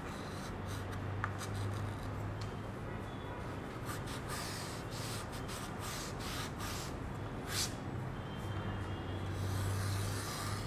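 Chalk writing on a small slate: a run of short, scratchy chalk strokes as digits and lines are drawn, over a low steady hum.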